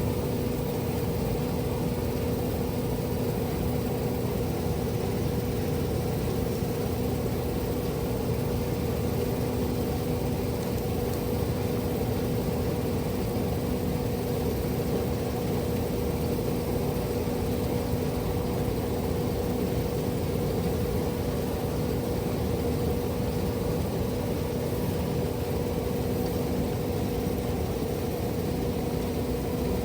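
Steady, unbroken engine hum with a constant low tone and a second tone an octave above it, without changes in speed or load.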